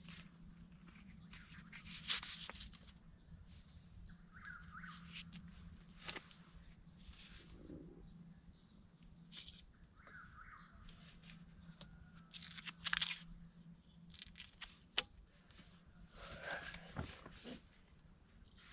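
Scattered rustling and crackling handling noises, with a few faint bird chirps and a faint steady low hum underneath.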